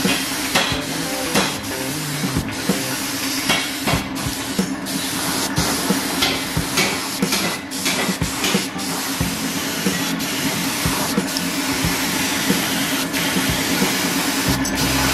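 Compressed-air paint spray gun spraying paint onto steel plates: a steady hiss, broken by many brief pauses as the trigger is released, over a steady low hum.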